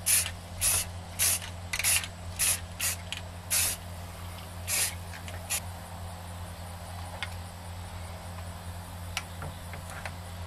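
Aerosol spray-paint can of Rust-Oleum deep forest green camouflage paint giving about ten short, quick sprays in the first five or six seconds as a base coat goes on, then a few faint taps.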